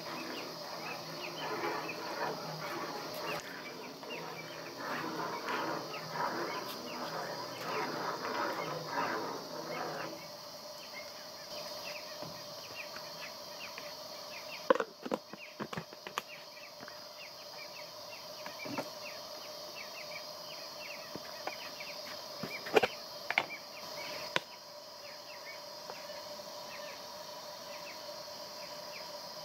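Night-time insect chorus: crickets trilling steadily with many short repeated chirps, thicker with chattering calls for the first ten seconds or so. A few sharp knocks come about halfway and again later.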